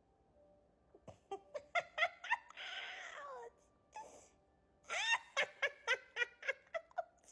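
A cat mewing in rapid series of short, high-pitched calls, with one longer call falling in pitch about three seconds in, a brief pause, then another quick run of mews.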